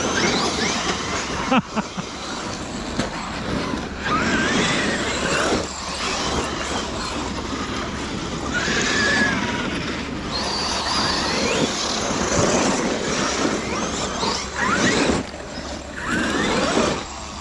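Brushless electric motors of large-scale RC off-road trucks whining up and down in pitch as they accelerate and slow, over a constant rush of tyre and driveline noise. The whine drops away briefly a few times.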